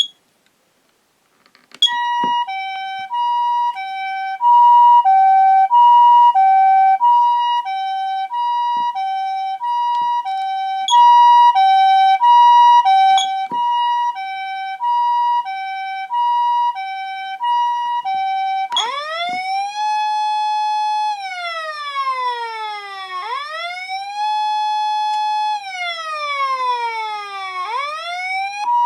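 Patlite SAP-500RBVK-N electronic siren amplifier starting about two seconds in with the Japanese ambulance two-tone 'pee-paw' siren, a high and a low note alternating about once a second. About two-thirds of the way through it switches to the wail tone, twice rising quickly, holding, then falling slowly, before going back to the two-tone.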